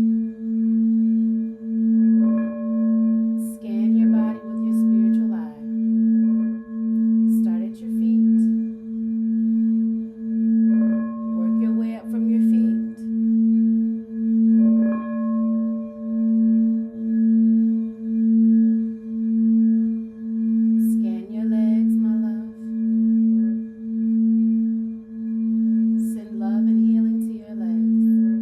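Singing bowl sounding a sustained low tone that swells and fades about once a second. Higher ringing tones come in briefly now and then, from other bowls struck during the sound bath.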